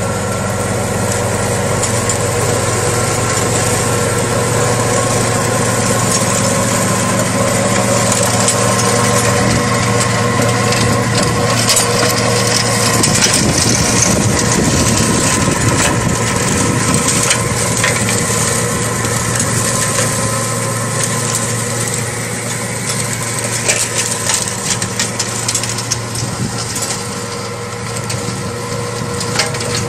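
Kubota GL338 tractor's diesel engine running steadily, driving a rear-mounted mower that whirs and chops through grass and weeds, with scattered ticks of debris struck by the blades. The chopping is heaviest in the middle and eases toward the end.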